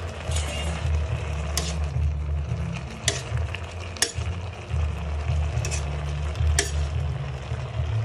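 A metal spoon stirring yardlong beans in an aluminium pan, clinking against the metal about five times, over a steady hiss of the beans sizzling in their small amount of cooking liquid.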